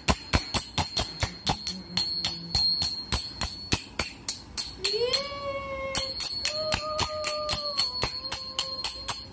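Pair of small brass hand cymbals (manjira) joined by a cord, clashed together in a steady rhythm of about four strikes a second, each clash ringing high. From about halfway through, a voice holds a sung note over the clashes.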